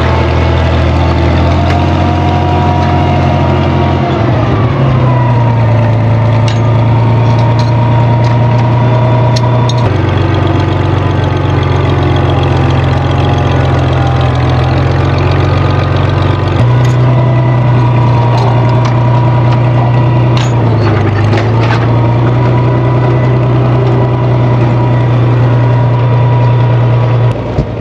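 Farm tractor engine running steadily, its pitch stepping up and down a few times, with a steady high whine alongside and a few light knocks.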